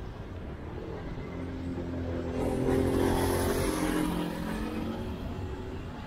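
A motor vehicle passes close by, its engine hum swelling to a peak about three seconds in and then fading.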